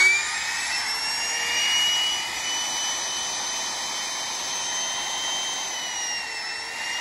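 Makita 100 V trim router's electric motor running free at full speed, a steady high-pitched whine that dips slightly about six seconds in.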